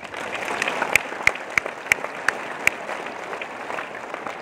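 Audience applauding, with six louder, sharp claps close by in the middle, about three a second; the applause dies down toward the end.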